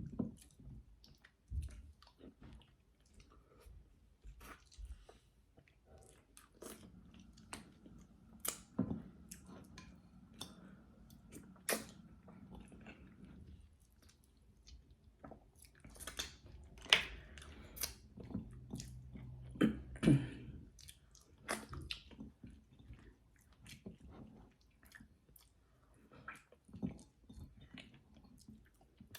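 Close-up eating sounds of someone chewing soft fufu and egusi soup: wet mouth clicks and smacks coming at an irregular pace.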